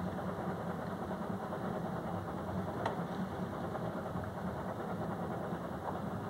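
A sailboat's auxiliary engine running steadily at low speed as the boat motors out under power, heard from the cockpit. A single short click about halfway through.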